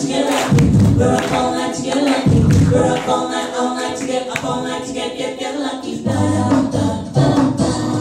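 Mixed-voice a cappella group singing in harmony over a sung bass line, with beatboxed percussion keeping a steady beat.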